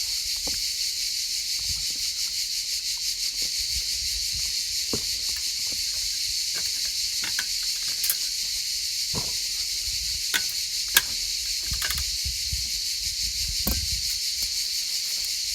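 Scattered knocks and scrapes of a trowel packing wet concrete into a wooden shutter, the sharpest about eight and eleven seconds in, over a steady high hiss.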